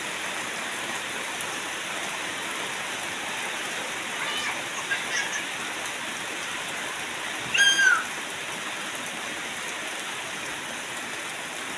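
Steady rain falling on the ground and plants, an even hiss. A few short high-pitched cries break through it, the loudest about two-thirds of the way in.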